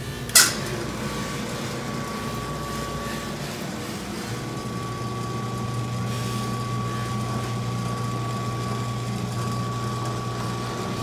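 Ryobi benchtop drill press switched on with a sharp click, then its motor running at a steady speed with a constant whine; the low hum grows stronger about four seconds in.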